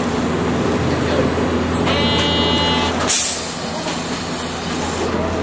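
Inside a Hiroshima Electric Railway 800-series tram, a steady low hum from the car's equipment. Near the middle a buzzer sounds for about a second, then a sharp hiss of compressed air follows at once.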